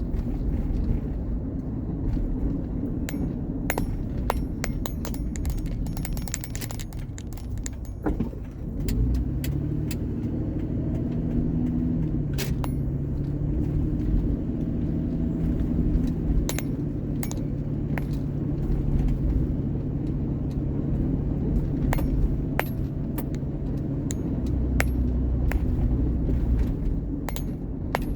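Car engine and road rumble heard from inside the moving car; the engine picks up about a third of the way in, holds a steady pitch, and eases off near the end. Loose items in the cabin jingle and click throughout, like keys.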